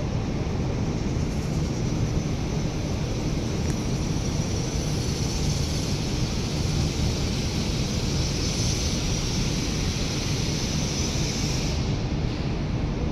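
Steady outdoor harbour ambience: a low rumble with a hiss over it and wind on the microphone. The hiss drops away about twelve seconds in.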